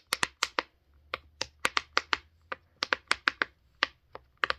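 Pop-it fidget toy's bubbles being pressed one after another, making a run of sharp, irregular pops, about five a second.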